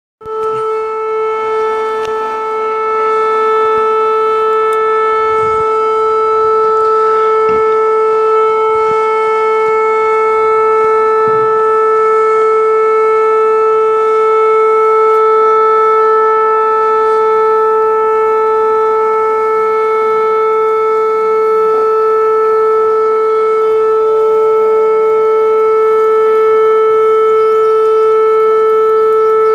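Fire-alarm siren sounding one loud, steady tone that does not rise or fall, calling the fire unit out to an incident.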